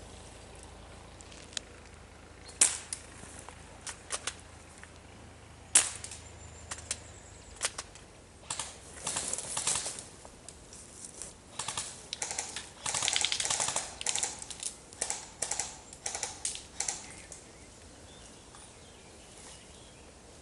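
Airsoft guns firing: a few single sharp shots, then several rapid bursts of fire, then quiet.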